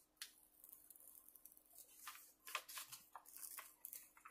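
Faint crinkling and rustling of the protective cover sheet being peeled back off a diamond painting canvas's sticky adhesive surface, in short scattered crackles.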